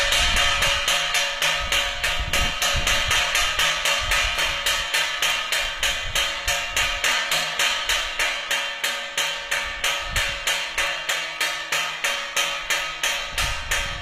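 Farm scarer device for keeping birds and nilgai off crops, striking repeatedly in an even rhythm of about two knocks a second over a steady ringing tone.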